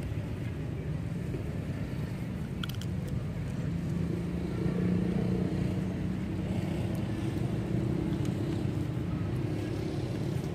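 Low, steady rumble of a motor vehicle engine, with a faint hum that swells slightly in the middle and eases off again.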